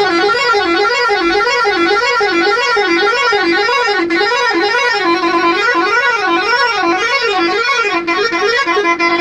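A bus's air horn blowing continuously as a warbling musical horn, its pitch rising and falling about twice a second, with a short steady stretch about five seconds in.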